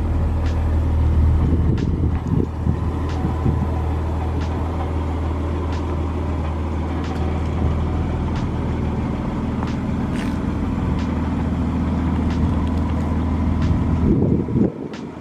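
Nissan Skyline R31's RB30 straight-six engine idling steadily, with scattered light ticks over the low hum; the hum cuts off suddenly near the end.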